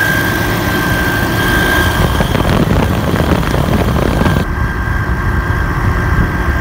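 Ram 2500's 6.7 L Cummins turbo-diesel idling, with a steady high-pitched whine from the alternator, the sound of a failing alternator that is due for replacement.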